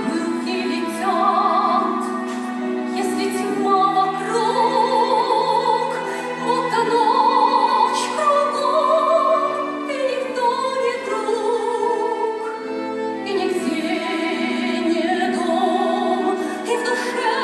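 A woman singing a song with wide vibrato over instrumental accompaniment.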